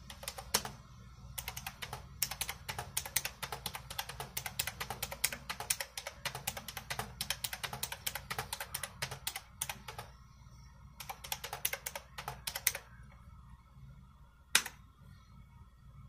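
Computer keyboard typing in fast runs of keystrokes as numbers are entered, with a short pause near the middle. The typing stops about 13 s in, and a single louder key press follows a moment later.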